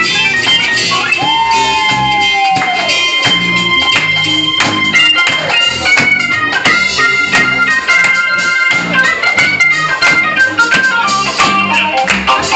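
Live band music: an organ-toned keyboard playing held and stepping notes over regular drum hits, with one sliding note about a second in.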